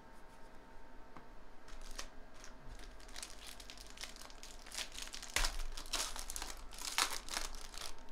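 Foil wrapper of a Bowman Draft Jumbo baseball card pack crinkling and tearing as it is ripped open by hand, with the loudest rips about halfway through and again near the end.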